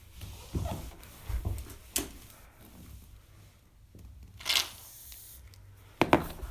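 Homemade slime and its container being handled: scattered soft knocks, a sharp click about two seconds in, a brief rustling burst about four and a half seconds in, and a few knocks near the end.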